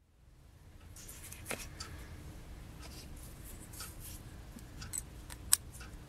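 Small machined metal connecting-rod parts handled on a paper-covered table: faint clicks and light taps as they are picked up and touched together, with a sharper click about five and a half seconds in, over a low steady hum.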